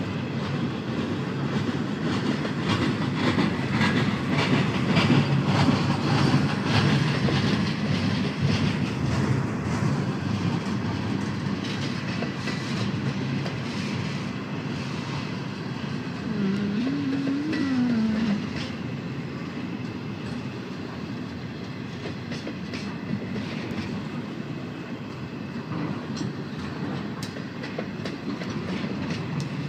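Train passing close by, a steady rolling rumble with wheels clicking over the rail joints, easing off slightly in the second half.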